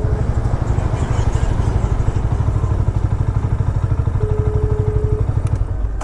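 Small motorcycle engine running with a steady, rapidly pulsing low rumble. A brief steady higher tone sounds for about a second, some four seconds in.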